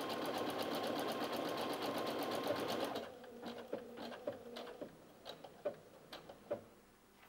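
Brother Innov-is F420 computerised sewing machine stitching a buttonhole at a rapid, even stitch rate, then stopping about three seconds in as the buttonhole is completed. A few light clicks and taps follow.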